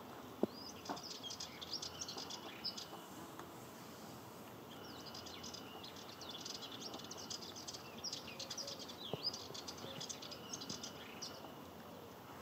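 Male Sardinian warbler singing its fast, scratchy chattering song in two bouts: a short one just after the start and a longer one from about four and a half seconds until near the end. A single sharp click sounds just after the start.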